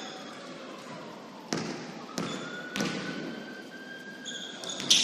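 Basketball bouncing on a gym floor: three dribbles about two-thirds of a second apart, echoing in the hall.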